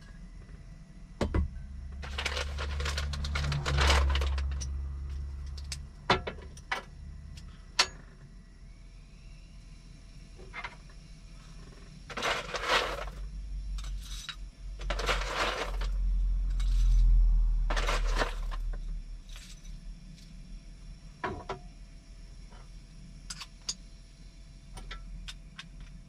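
Crinkling and rustling of a plastic food wrapper being handled, in several bursts, with small clicks and knocks of objects being picked up and set down on a table.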